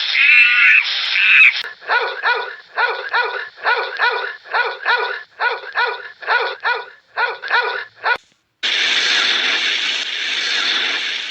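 An animal barking in a quick, even series of short calls, about two and a half a second, for some six seconds, then a cut to a steady rushing noise.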